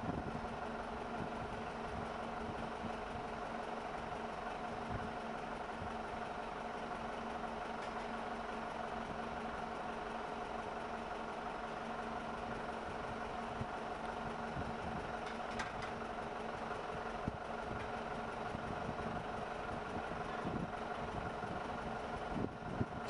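Excavator engine idling steadily with an even hum, holding a hung concrete well element while it is lowered into place.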